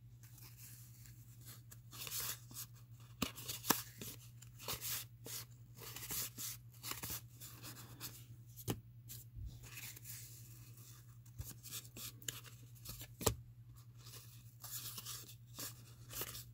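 1987 Fleer baseball cards being slid off a stack one at a time in the hands: a run of soft, irregular card flicks and rustles, over a low steady hum.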